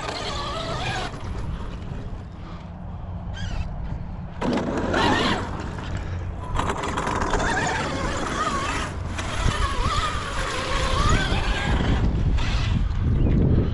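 A motor whining, its pitch rising and falling again and again over a steady low rumble.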